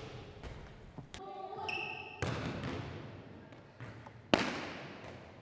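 Volleyball being struck in hitting drills: a sharp smack about two seconds in and a louder one past four seconds, each echoing through the gym. A short squeak of sneakers on the hardwood floor comes about a second in.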